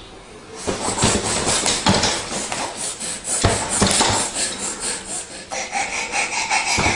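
Baby laughing excitedly in rapid, breathy gasps, turning into a higher, steadier squeal about five and a half seconds in.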